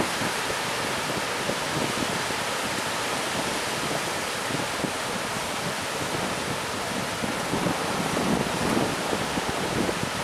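Surf breaking and washing onto a beach: a steady rushing wash of waves that swells a little near the end.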